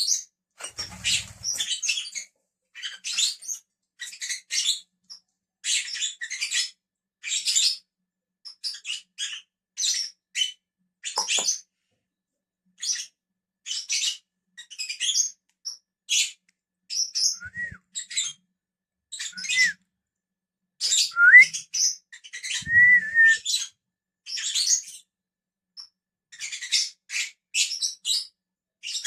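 Pet lovebirds chattering in rapid bursts of short, high-pitched chirps that run on throughout, with a few clear rising whistled notes about two-thirds of the way through.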